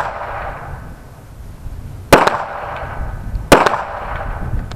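Two 9mm pistol shots about a second and a half apart, each followed by a short ringing echo.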